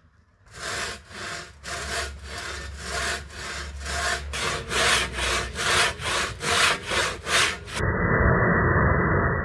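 Large handsaw with freshly sharpened teeth cutting crosswise into a thick timber beam: a rasping stroke about twice a second. Near the end the strokes give way to a duller, continuous rush with no high end.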